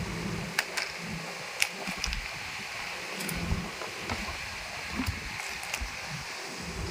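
Scattered light clicks and taps from hands handling small plastic parts, a bag of screws and cable connectors, over a steady background hiss.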